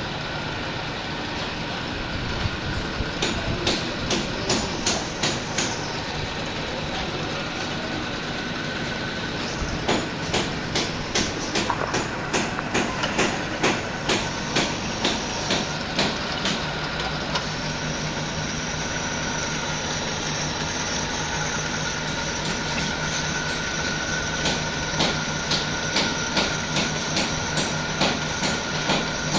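Pillar drill press running and drilling into a metal mould plate: a steady motor hum under a regular ticking, about two ticks a second, that comes and goes several times.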